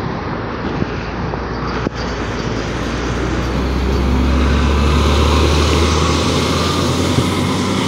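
NefAZ city bus pulling away and driving past, its engine's low drone growing louder over the first few seconds, then holding, over traffic noise. A single sharp knock about two seconds in.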